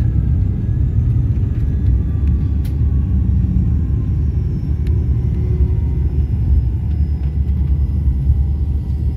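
Cabin noise of a Fokker 100 jet on its landing roll: a steady low rumble from the wheels on the runway and the rear-mounted Rolls-Royce Tay engines, with a faint whine slowly dropping in pitch as the aircraft slows.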